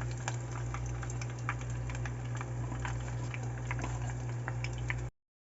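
Crab rangoons deep-frying in hot oil: a steady sizzle with scattered crackles and pops, over a steady low hum. The sound cuts off abruptly about five seconds in.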